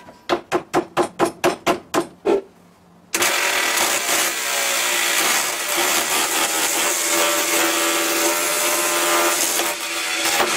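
A run of about nine even knocks, some four a second. About three seconds in, the Hovermower's electric motor starts suddenly and runs with a steady hum and a rush of fan air.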